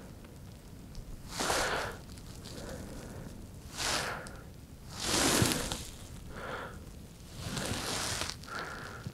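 Handling noise while winter fishing tackle is adjusted: a series of short rustling, crackling bursts, the loudest about five seconds in.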